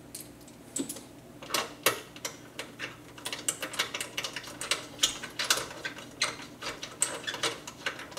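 Rapid, irregular light metallic clicks and ticks: the 10 mm fasteners of a Prius Plug-in hybrid battery cooling fan being fitted and turned by hand. The clicks pick up about a second and a half in.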